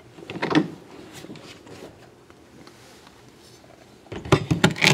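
A plate and a metal cake pan being handled: a brief knock about half a second in as the plate is laid on the pan, then, once the pan and plate are turned upside down, a quick cluster of clatters and knocks near the end as they are set down on the table.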